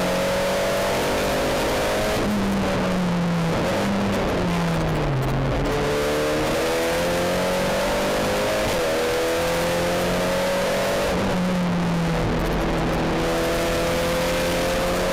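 SEAT Leon Supercopa race car's turbocharged four-cylinder engine at full throttle, heard from inside the cockpit: the note climbs through the gears with brief breaks at each shift. It falls away about four to five seconds in, then climbs again, with another shift about eleven seconds in.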